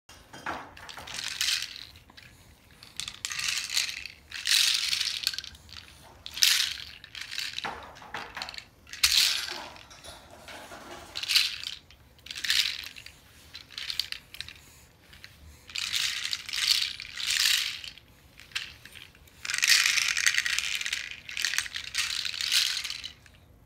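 Wooden rainmaker toy being tipped and rolled about, its beads cascading through the inside in over a dozen short rattling, hissing rushes, each a second or so long, with the longest run near the end.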